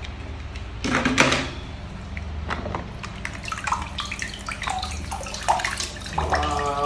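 Water sloshing and splashing as toy cars are handled in a tub of water, with a louder splash about a second in and scattered small knocks and drips.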